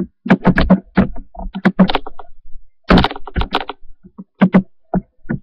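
Typing on a computer keyboard: irregular keystrokes, with a brief pause about halfway.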